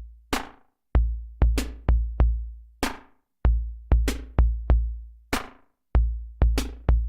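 Background music: an electronic drum-machine beat with deep bass kicks and sharp snare hits about twice a second.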